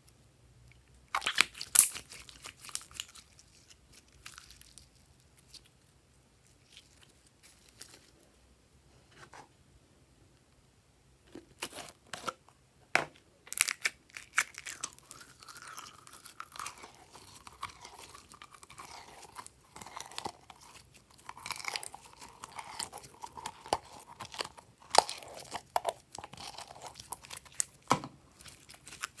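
Hands squeezing and pulling glossy clear slime, giving sticky crackles, clicks and small pops. A burst comes about a second in, the sound goes quiet for several seconds, then steady crackling runs from about eleven seconds in onward.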